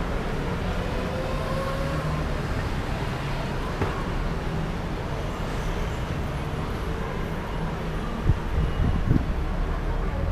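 Steady city street traffic noise from passing cars and motor scooters, with a couple of thumps about eight and nine seconds in.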